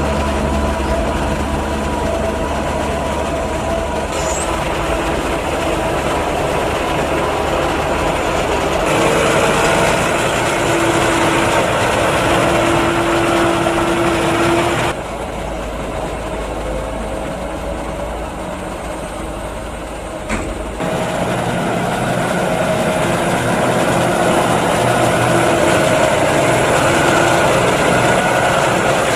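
John Deere 6195R tractor running as it pushes and spreads chopped maize across a silage clamp with its front and rear maize-levellers. The sound is a steady engine noise whose level shifts abruptly a few times, quieter for a stretch about halfway through.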